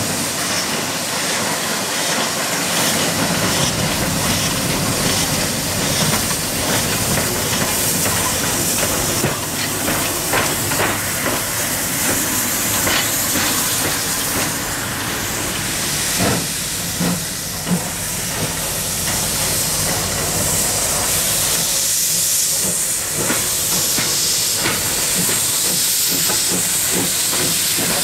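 Pt47 steam locomotive letting off a steady, loud hiss of steam, with a few short knocks scattered through it.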